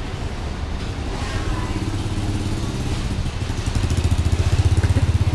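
A motorbike engine running close by, getting louder from about halfway in and loudest near the end, over a steady low background hum.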